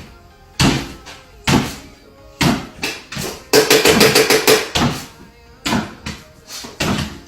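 Repeated sharp knocks about once a second, with a quick run of rapid knocks about halfway through.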